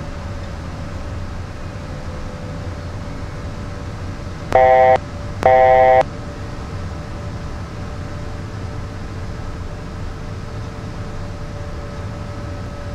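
Two short electronic beeps, each about half a second long and a second apart, over the steady hiss and hum of a Beechcraft Premier 1A's cockpit audio in flight.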